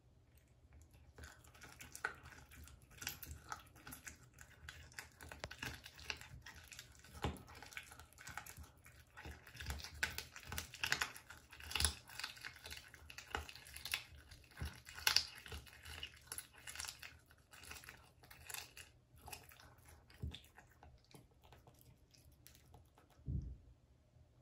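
A cat chewing a raw duck foot: a long, irregular run of small crunches and clicks as it bites through skin and bone, busiest in the middle. A short low thump near the end.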